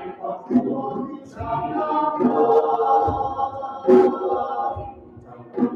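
Mixed choir singing a South African hymn, with low djembe beats underneath.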